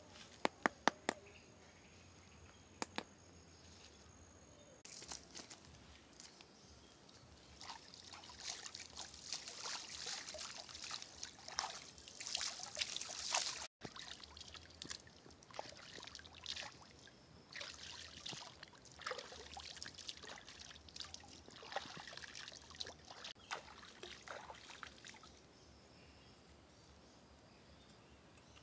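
Shallow water splashing and trickling in irregular bursts as a hand stirs and scoops at the edge of a pond. A few sharp clicks come in the first three seconds.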